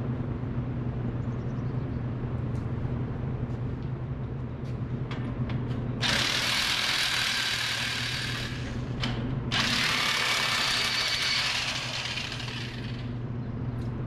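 Air hissing at a tractor rear tire's valve stem in two long bursts of about three seconds each, with a faint whistle in the hiss, over a steady low hum.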